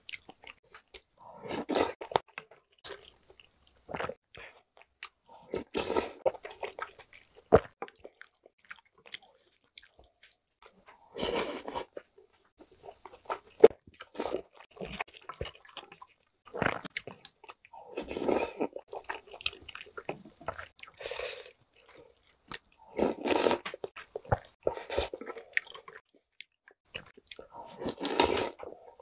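A person eating spicy soft-tofu soup with chewy jjolmyeon noodles, with a slurp of noodles or broth about every five seconds and chewing in between. A few sharp clicks, such as utensils on the bowl, fall in the pauses.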